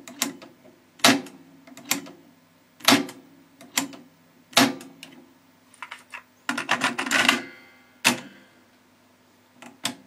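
Pioneer cassette deck's piano-key transport controls and mechanism clacking, about one sharp clack a second, with a quick rattle of several clicks about two-thirds through. The keys are being worked to free a sticking record/play switch that leaves the level meter stuck.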